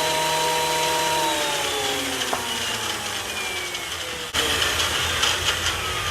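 Delta 22-540 benchtop planer running steadily, then spinning down with its whine falling in pitch over about three seconds after being switched off. About four seconds in, a sudden click is followed by a louder rushing noise.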